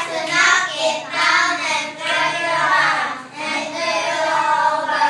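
Young children singing together.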